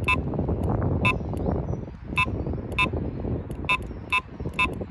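Carp bite alarm sounding a series of short, high electronic beeps at an uneven pace, roughly one to two a second: a fish is pulling line off the reel on a run. A low rumbling noise runs underneath.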